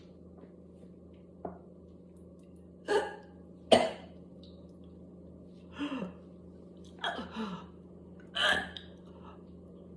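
Harsh coughs and throat-clearing from a person with whooping cough in a coughing spasm. There are about six separate bursts with short pauses between them: two loud ones in the first half and weaker, grunting ones toward the end. A steady low hum runs underneath.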